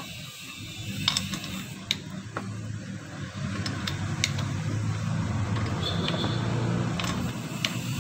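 Sharp metal clicks and ticks from a wrench turning a gear puller's screw as it draws the clutch off a car A/C compressor. Under them runs the steady low hum of a vehicle engine, louder in the middle.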